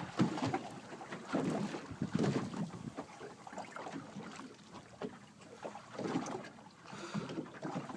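Water slapping against the hull of a small boat in irregular bursts, with wind buffeting the microphone.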